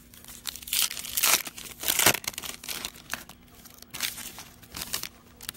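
A trading-card pack's foil wrapper being torn open and crinkled, with cards handled: several crinkling, tearing bursts, the loudest about two seconds in.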